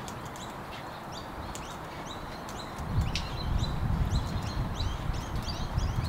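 Wild birds chirping in quick, high, repeated calls. About three seconds in, a low rumble comes up underneath and the overall sound gets louder.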